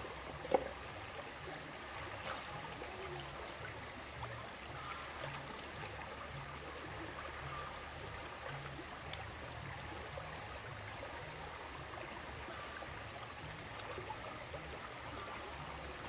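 Shallow rocky river running steadily over and around stones, with one sharp click about half a second in.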